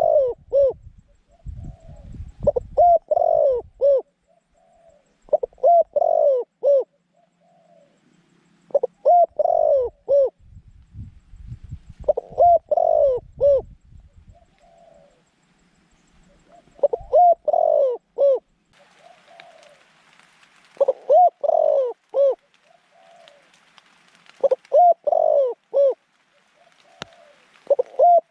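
A decoy dove in a cage trap cooing over and over, each call a short phrase of several curved coo notes, repeated about every three to four seconds. Low rumbles sit under some of the calls.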